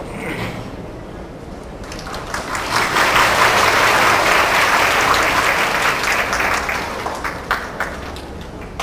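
Audience applauding: the clapping builds about two seconds in, holds, then tapers off to a few scattered claps near the end.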